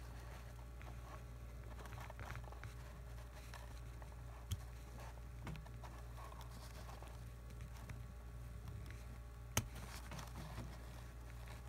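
Faint handling noise of steel needle-nose pliers on a tiny plastic slot-car axle part, with two sharp clicks, one about four and a half seconds in and a louder one at about nine and a half seconds, over a steady low hum.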